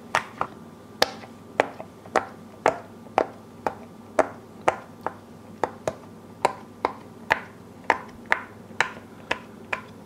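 Silicone pop-it fidget toy, its bubbles pressed one after another with a fingertip, giving a sharp pop about twice a second. She takes the side being popped for the soft side.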